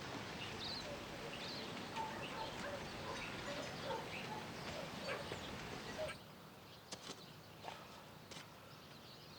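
Outdoor ambience: scattered short bird chirps over a steady hiss. About six seconds in it drops abruptly to a quieter background with a few sharp clicks.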